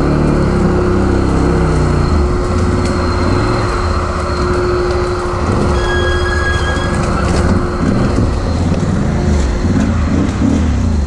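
Arctic Cat MudPro ATV's freshly swapped engine running at low speed as the machine crawls over brush and fallen branches, its note shifting about two seconds in.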